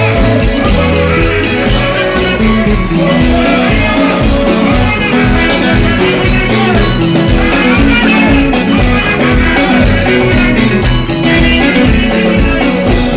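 Congolese dance-band music playing loudly and continuously, with guitar lines over bass and a steady beat.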